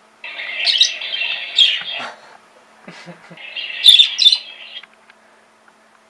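Pet birds calling: two bursts of budgie chatter, with a few loud, sharp squawks over them.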